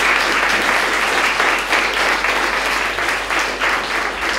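Audience applauding: dense, steady clapping from many hands, beginning to thin out near the end.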